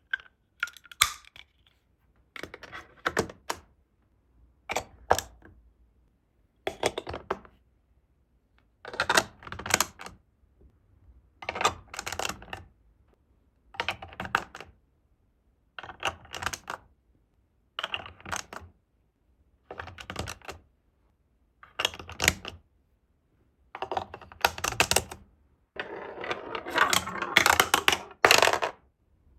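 Glass marbles rolling and clattering through plastic building-block marble-run track, in short rattling runs about every two seconds with silences between them. Near the end comes a longer, busier run of clatter.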